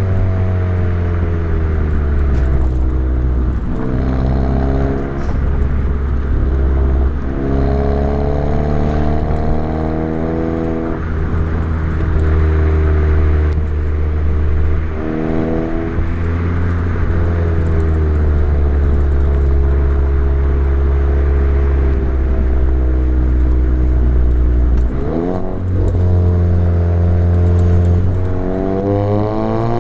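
Volkswagen Mk7 GTI's turbocharged 2.0-litre four-cylinder engine and exhaust, fitted with an aftermarket ATP downpipe, driven on the road. The engine note rises and falls in pitch, with a few brief breaks where the pitch drops or changes sharply, as at gear changes or lifts off the throttle.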